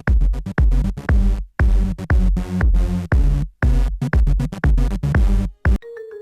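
Loud electronic dance music with a heavy drum-machine kick beat and choppy stops between hits. It cuts off abruptly shortly before the end, and a few quieter held tones follow.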